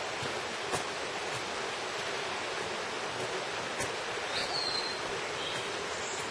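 Mountain stream water rushing steadily over rocks. A brief high whistled note comes about four seconds in and another near the end.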